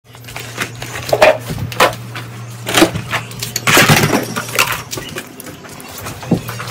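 Plastic toys clattering and knocking as they are picked up and put away, an irregular string of knocks, busiest about three to four seconds in, over a low steady hum.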